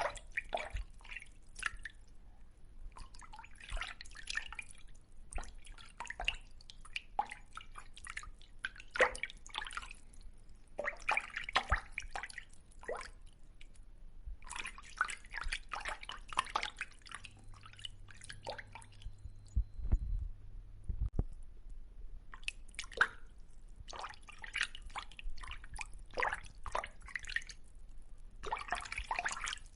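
Fish splashing in water: irregular clusters of small wet splashes and drips, with short pauses between clusters.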